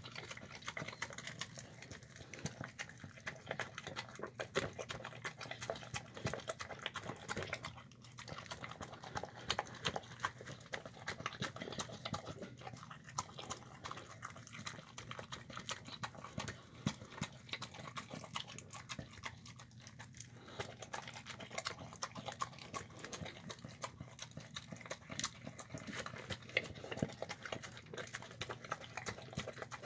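A Shar-Pei–pit bull mix dog eating from a plastic tub: continuous wet chewing, licking and lip-smacking, with many small clicks of teeth and tongue and the muzzle knocking the plastic. It pauses briefly twice.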